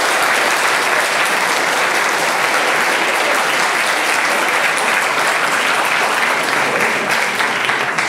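Audience applauding, loud and steady, dying away at the very end.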